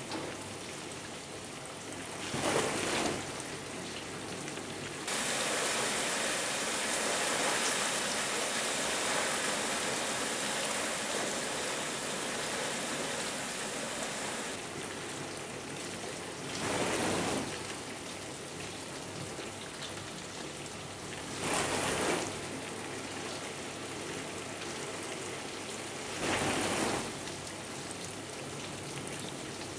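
AEG 50750 dishwasher running its wash program: water spraying and splashing inside the tub as a steady hiss. It swells every four to five seconds and is louder for a stretch from about five to fourteen seconds in.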